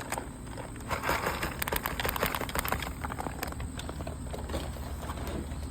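A cat eating from a food bowl: many small, irregular crunching clicks and scrapes.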